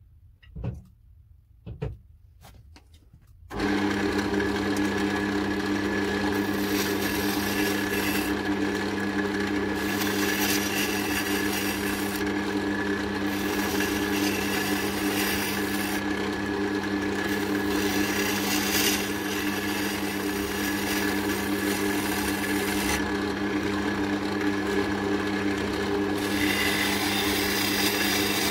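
A few light knocks, then about three and a half seconds in a wood lathe starts and runs with a steady motor hum. A turning tool cuts the spinning oak handle in repeated passes, each pass adding a hissing scrape of shavings.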